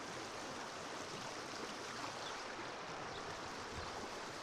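Muddy rainwater rushing steadily along a drainage channel (nala) swollen by hours of rain, pouring over rocks and debris.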